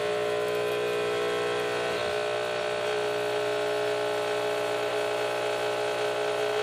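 Delonghi EC-155 espresso machine's vibration pump buzzing steadily after the knob is turned from steam to brew, with steam and hot water hissing out of the empty group head. This flush is temperature surfing: it vents the overheated boiler down toward brewing temperature. The buzz stops near the end.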